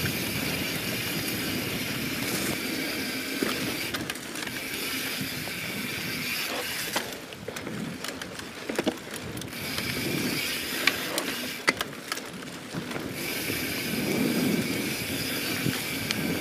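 YT Jeffsy 27 mountain bike ridden fast over sandy dirt singletrack: tyre noise on the ground with rattles and occasional sharp knocks from the bike, and the rear hub's ratcheting freehub clicking whenever the rider coasts instead of pedalling.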